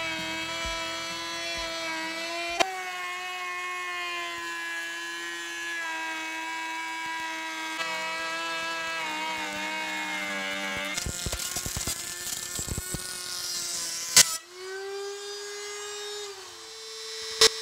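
High-speed rotary tool in a homemade plunge-router base, whining steadily as its bit routes a profile along the edge of a wooden plank. Its pitch dips under load. About eleven seconds in the sound turns rough and rattly for a few seconds, with a sharp click, and then the whine runs on at a different pitch with another click near the end.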